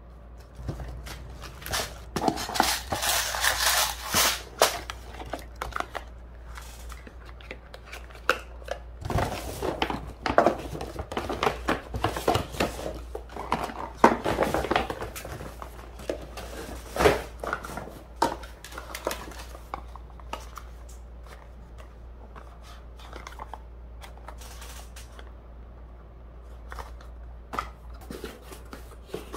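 Plastic packaging crinkling and rustling, with small clicks and knocks as nail-supply packets, boxes and bottles are handled and set down. The handling is busy for the first twenty seconds or so, then turns sparse and quieter.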